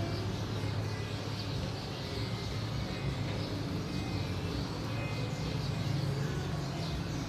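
Steady low hum of background noise with a few faint, short high chirps over it.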